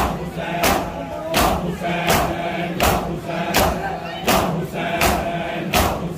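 Matam: a crowd of men beating their chests with open hands in unison, one sharp slap about every three-quarters of a second, with men's voices chanting a noha between the slaps.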